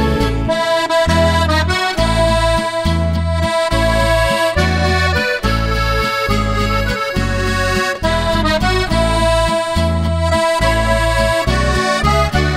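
Instrumental break of a sung Slovenian song: accordion playing the melody over a steady bass beat.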